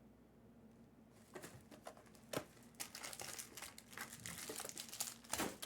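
Plastic wrapping on a sealed trading-card box or pack being crinkled and torn open, a string of sharp crackles that starts about a second in and is loudest near the end.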